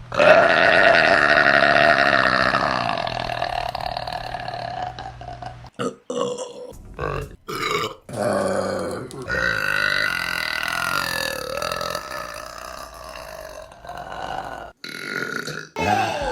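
A woman burping: two long, drawn-out burps of five to six seconds each, the first right at the start and the second from about halfway, with a few short burps between and after them.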